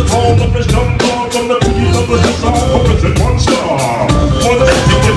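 Live hip hop band playing loud, a drum kit keeping a steady beat under a rapper's vocal on a microphone.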